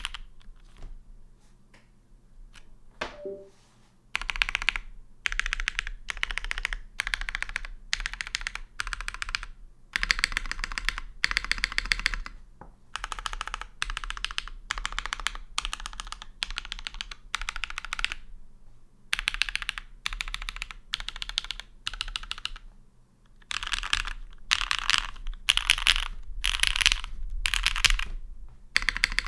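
Typing on a custom mechanical keyboard with lubed, polished Hyperglide Cherry MX Black linear switches and GMK keycaps: fast runs of keystrokes in bursts, starting a few seconds in, with a short pause about three quarters of the way through.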